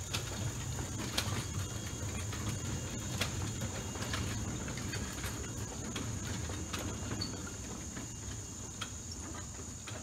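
Small two-foot-gauge electric steeple cab locomotive and gondola car rolling slowly over the track: a steady low rumble of wheels on rail with scattered clicks as they pass rail joints and switches, easing off near the end as the train moves away. A steady high insect drone sits over it.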